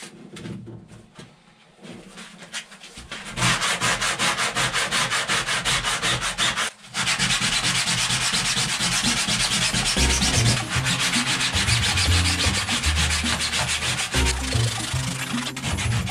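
Hand sanding of cured fibreglass (GRP) laminate with sandpaper on a small round pad, in fast scrubbing strokes that grow loud about three seconds in, with a short pause near seven seconds. The sanding keys the old laminate so that new fibreglass tape will bond to it.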